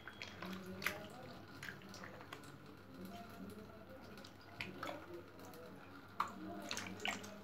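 Wet squelches and slaps of a hand shifting slippery fish around in a basin, with a scattering of short, sharp wet clicks.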